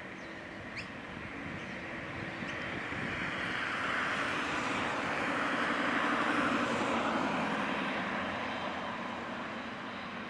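Boeing 777-300ER's General Electric GE90 turbofans running as the airliner taxis close by, a steady jet roar with an engine tone beneath it that swells to a peak about six seconds in and then eases off.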